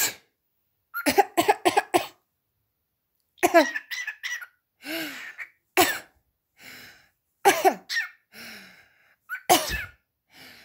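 Pet parrot mimicking human sneezes and coughs: a quick run of four short coughs about a second in, then single sneeze-like bursts and breathy huffs about once a second.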